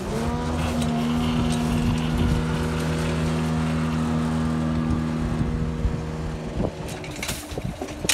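Level crossing barrier machine's motor running as the barriers rise: it whines up to speed at the start, runs at a steady pitch and stops about six and a half seconds in. A few sharp clicks and knocks follow near the end.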